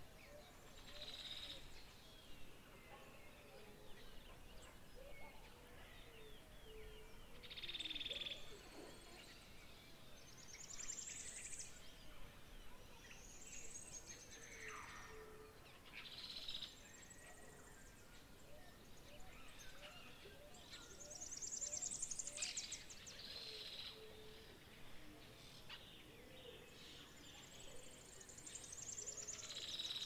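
Faint outdoor ambience of several birds calling: short bright chirps and high downward-sweeping calls come every few seconds, with softer low calls beneath, over a quiet steady background hiss.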